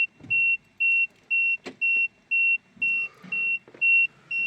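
Peugeot 3008 dashboard warning chime beeping over and over, one high tone about twice a second, hella annoying. It sounds while the car's BSI body computer is flagging handbrake faults after a battery change.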